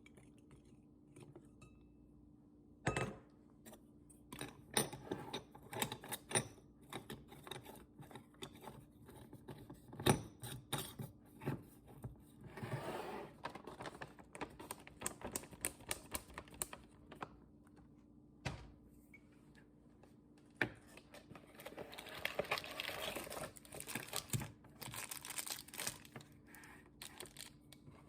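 Kitchen items being handled: a long string of light clicks and knocks from containers, lids and packages, with stretches of plastic packaging rustling and crinkling midway and again later, over a faint steady hum.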